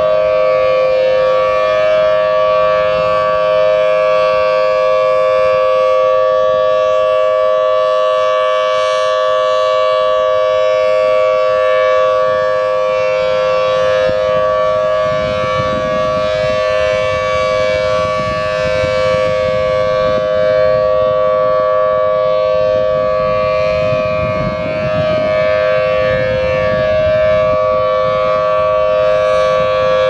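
Federal Signal Thunderbolt 1000AT outdoor warning siren sounding its steady Alert signal: a held, unwavering two-note chord from the rotating horn.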